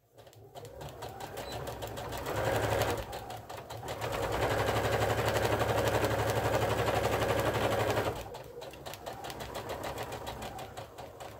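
Electric domestic sewing machine stitching a seam through layered gingham and terry cloth, the needle running in a fast, even rhythm. It speeds up about two seconds in, runs fastest and loudest from about four to eight seconds, then slows again near the end.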